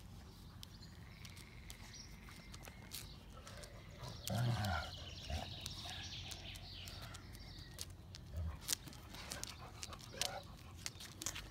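A puppy and an older dog play-fighting, mostly quiet, with one short low growl about four and a half seconds in and a few softer grunts later.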